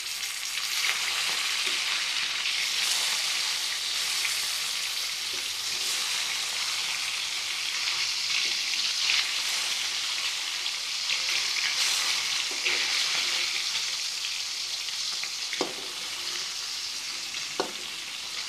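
Katla fish steaks sizzling steadily as they fry on the second side in hot mustard oil in a metal kadai, with a metal spatula scraping against the pan now and then and two sharp taps near the end.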